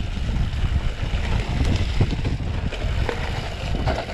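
Mountain bike riding over a rough dirt trail: wind buffeting the microphone as a steady low rumble, with the bike clattering and knocking over the bumpy ground.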